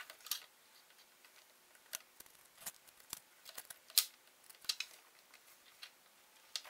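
Scattered light clicks and ticks of metal tweezers and fingers handling a CCFL backlight lamp holder wrapped in aluminium foil, as small foam pieces are pushed in beside the lamp. The sharpest click comes about four seconds in.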